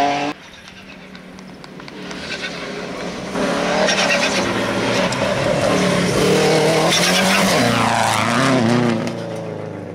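Subaru Impreza rally car's flat-four engine revving hard on a gravel stage, the pitch climbing and dropping with gear changes and throttle lifts, over the hiss of tyres on loose gravel. It builds from about a second in, is loudest from about three seconds in, and fades near the end.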